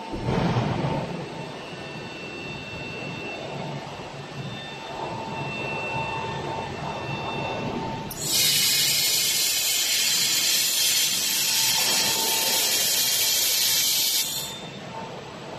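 Robot-held fiber laser welding head welding a steel block: a loud, steady high-pitched hiss of spatter lasting about six seconds, starting and stopping abruptly. Before it, a faint whine comes and goes as the robot arm moves into position.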